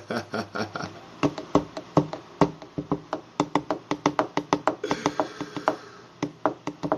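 Quick, uneven tapping: a run of sharp clicks, several a second, from fingers tapping on a hard surface close to the microphone.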